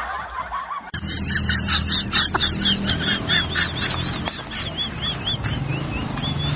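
A bird calling: a quick run of short, high, rising-and-falling calls, about three a second, over a low hum.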